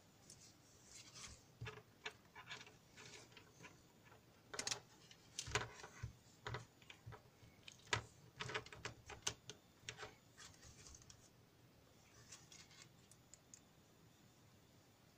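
Irregular small clicks and light rattles of wires, alligator clips and test leads being handled, thickest in the middle and dying away near the end.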